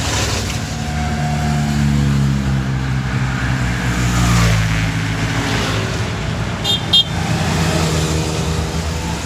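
Cars driving past on the road, their engine sound rising and falling as they go by. Two quick horn toots about seven seconds in.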